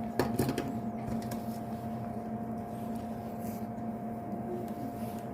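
Steady electrical hum with a constant high whine over it, and a few light clicks just after the start.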